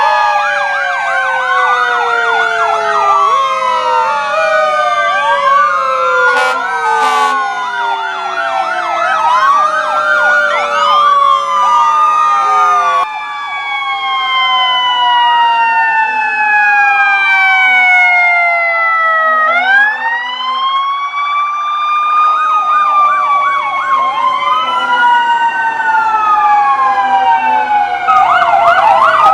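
Several fire engine sirens sounding at once: electronic wails and fast yelps overlap with a mechanical siren that winds slowly down and then winds back up about twenty seconds in.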